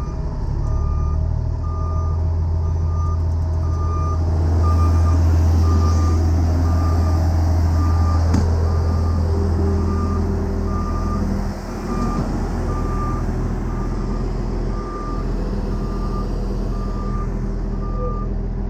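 Heavy diesel machinery engine running with a backup alarm beeping steadily, a little more than once a second. The engine grows louder about four seconds in and eases back about eleven seconds in. A single sharp clank sounds around the middle.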